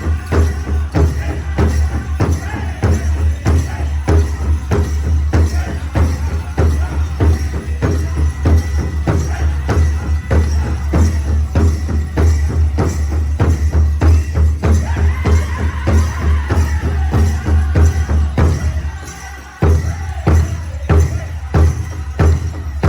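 Powwow drum song: a large drum struck in a steady beat about twice a second, with singers' voices over it. Shortly before the end the beat fades for a moment, then comes back with hard strikes.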